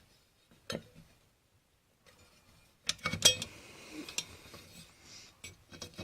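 Metal parts of a 700R4 transmission input drum clinking and knocking against each other as a large part is worked out of the drum. There is a single click about a second in, then a run of sharp clinks with light rattling from about three seconds on.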